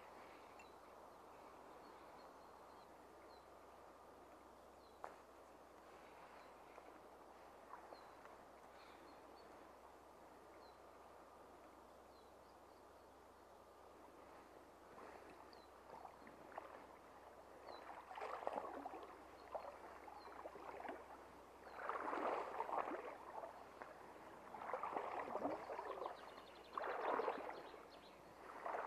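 Shallow river water: a steady hiss at first, then from about fifteen seconds in, repeated bursts of splashing and sloshing that grow louder toward the end, while a hooked trout is played in the current.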